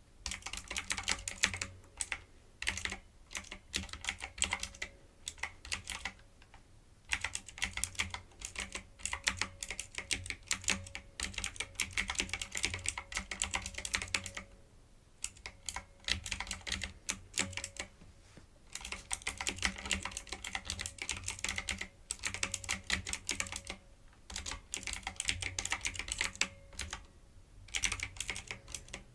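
Typing on a typewriter-style mechanical keyboard with round retro keycaps: fast runs of crisp key clicks, coming in bursts a few seconds long broken by brief pauses.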